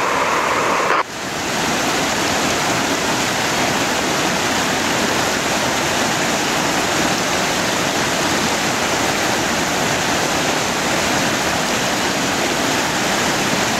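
Glacial meltwater stream rushing over rocks: a steady, loud rush of water, with a brief dip about a second in.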